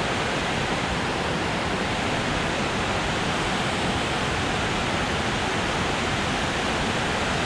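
Water pouring over a low dam's spillway: a steady, even rushing.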